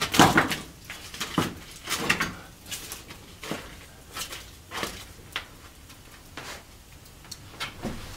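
Iron hearth racking and grate being pulled out of a fireplace: a string of irregular metal clanks and scrapes, the loudest at the start.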